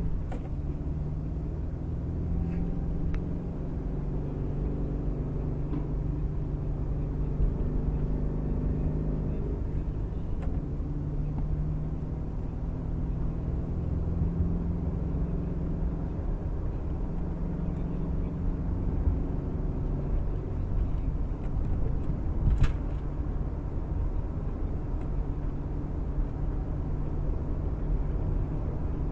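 Engine and road noise inside a moving car's cabin: a steady low rumble with the engine hum drifting slightly in pitch. A single brief sharp knock comes about three quarters of the way through.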